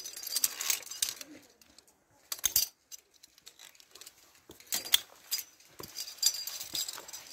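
Via ferrata carabiners and lanyard clinking and clicking against the steel safety cable as a climber moves along it, in irregular knocks with a short lull about two seconds in.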